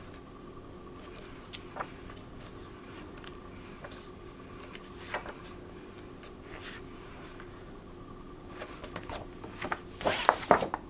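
Pages of a large book being turned by hand, soft paper swishes now and then, then a quick riffle of several pages near the end. A faint steady hum runs underneath.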